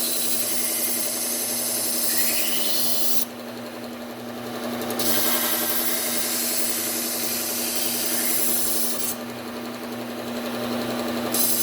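Bucktool low-speed belt sander running with a steady hum while a kitchen knife's edge is ground on its Cubitron 120-grit belt, raising a burr along the edge. There are three grinding passes, a few seconds each, with short breaks where only the motor hum is heard.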